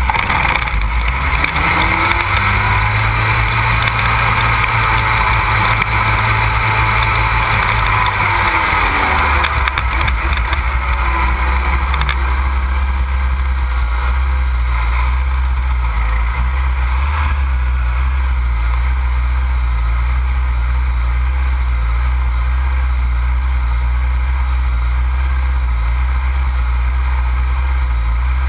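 Škoda 1.8 turbo four-cylinder engine of a rallycross buggy, heard from onboard. It runs at low revs while the buggy rolls slowly, then settles to a steady idle about ten seconds in.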